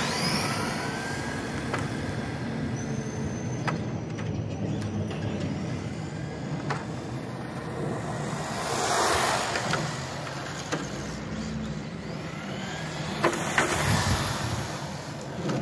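Brushed 540 electric motor of an HSP Flying Fish RC touring car whining up in pitch several times as it accelerates on a flat-out speed run, over tyre and drivetrain noise on rough asphalt. A louder rush of noise comes about nine seconds in.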